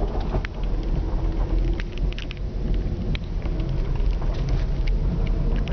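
A car driving over an ice- and snow-covered road, heard from inside the cabin: a steady low rumble of engine and tyres, with scattered sharp ticks and crackles.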